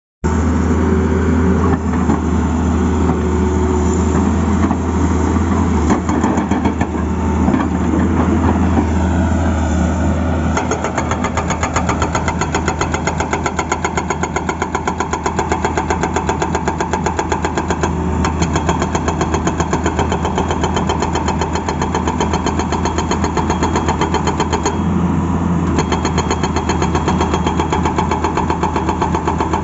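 Tata Hitachi excavator's diesel engine running loudly, with a falling whine just before ten seconds in. The note then changes and settles into a steady, evenly pulsing run.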